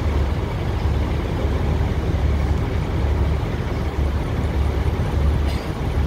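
A heavy diesel vehicle engine idling: a steady low rumble with a rough, noisy wash over it.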